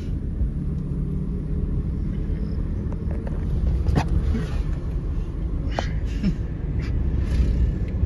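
Car engine and road rumble heard from inside the cabin while driving, a steady low drone. Two sharp clicks cut through it, about four and six seconds in.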